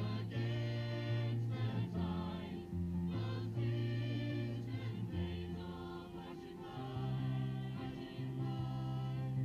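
A small mixed choir of carol singers singing a Christmas carol to an electronic keyboard, with held low notes changing every second or two beneath the voices.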